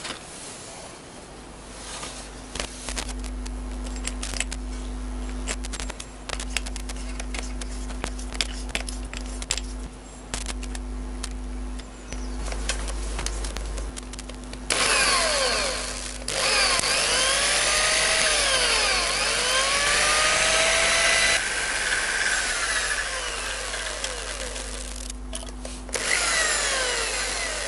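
Corded electric drill with a stepped drill bit running against a seized, rounded-off exhaust header fastener on a motorcycle. For the first half it hums with light scraping; about halfway through the bit bites into the steel and the sound becomes much louder, a harsh cutting noise with squeals that slide up and down in pitch, easing off a second or two before the end.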